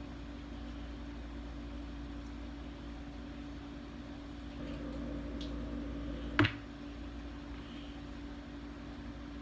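Steady low hum of room tone, with one sharp click about six and a half seconds in.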